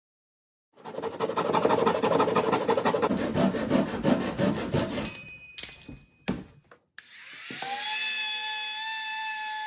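Japanese pull saw cutting through the edge of a thin plywood panel: a fast, rasping run of strokes lasting about four seconds. About seven seconds in, a laminate trimmer (small router) switches on, its whine rising as it spins up and then running steadily.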